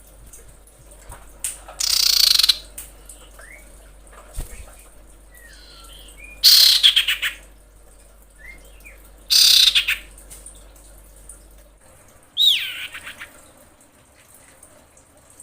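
Female common iora calling: four loud, harsh calls a few seconds apart, the last one sliding down in pitch, with faint short chirps in between. It is the call of a female in breeding condition calling for a male.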